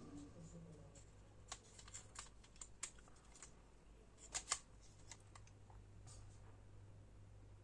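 Scattered light clicks and taps from small plastic parts and tools being handled while the goggles are taken apart, the two sharpest close together about four and a half seconds in, over a low steady hum.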